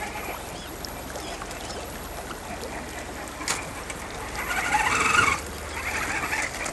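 1/10-scale RC rock bouncer's Hobbywing AXE540 brushless motor and Wraith transmission whining in short bursts as it crawls up a boulder, loudest about five seconds in, over the steady rush of a creek. A sharp knock about three and a half seconds in.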